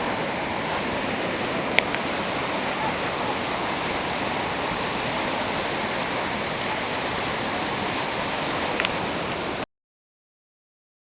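Floodwater of a river in spate rushing steadily, an even loud roar of water. A sharp click comes about two seconds in and another near nine seconds, and the sound then cuts off abruptly to dead silence for the last second or so.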